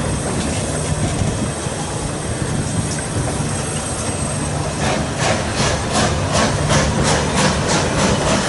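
Passenger coaches of a steam-hauled train rolling past with a steady rumble. About halfway through, their wheels start a rhythmic clickety-clack of quick, evenly repeating clicks.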